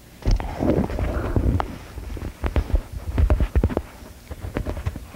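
Close handling noise: irregular low thumps and rustling of clothing with scattered sharp clicks, as a man settles at a desk and works with his hands at his shirt front and tie.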